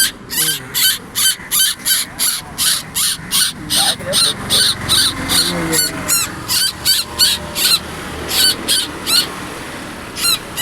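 A bird calling over and over in short, shrill, high-pitched notes, about three a second, with a short pause near the end.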